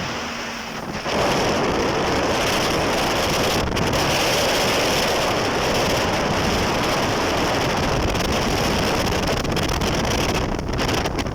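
A jet ski running at speed over the sea, its engine mixed with water rush and heavy wind buffeting the microphone. The noise jumps up sharply about a second in and then holds steady.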